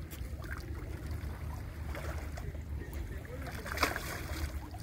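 Steady low rumble of wind and river water, with a few light knocks and a short rustle near the end.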